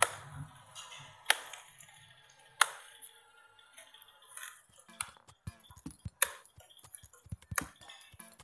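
Sharp plastic snaps as the clip-on frame of an Acer V5-571 laptop keyboard is worked loose by hand: three loud snaps about a second and a half apart, then a quick run of lighter clicks and ticks as the frame is handled.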